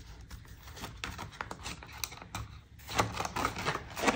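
Paper banknotes rustling and snapping as they are handled and slid into a clear plastic binder envelope: a string of soft clicks and crinkles, busier and louder about three seconds in.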